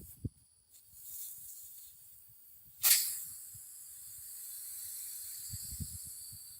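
Gas hissing out under pressure: a faint hiss about a second in, then a sharp burst about three seconds in that settles into a steady high hiss.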